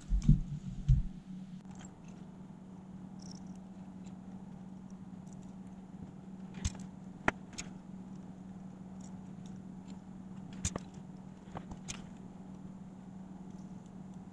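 Light scattered clicks and taps of desoldering work on a cassette deck's solenoid circuit board with a soldering iron and desoldering braid, over a steady low hum. A few low knocks from handling the tape mechanism at the start.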